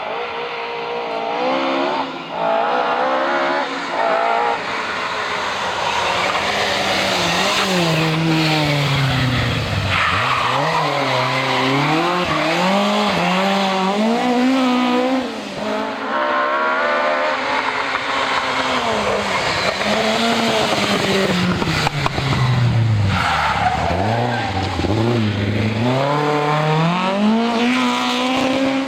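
Historic rally car engine at full throttle on a special stage. Its note climbs through the revs and drops again over and over. It falls low twice, about a third of the way in and again near the end, before climbing once more.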